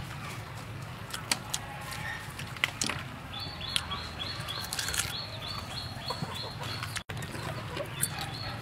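Crisp crunching and chewing as bites are taken from a deep-fried frog, heard as scattered sharp clicks. Behind it chickens cluck, and from about three seconds in a bird repeats a short high note about three times a second.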